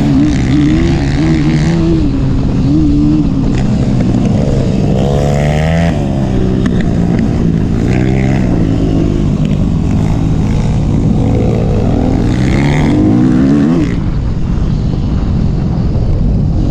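Yamaha YZ250F single-cylinder four-stroke dirt-bike engine under way, revving up and dropping off again and again as the throttle is worked through corners and jumps.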